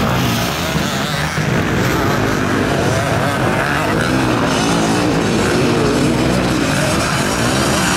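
Several motocross bike engines racing, their pitch rising and falling over and over as the riders open and close the throttle through jumps and corners.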